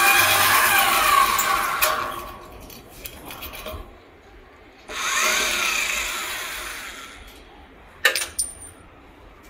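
Electric drill running in two bursts of a few seconds each, each one trailing off as it slows, then a sharp knock near the end.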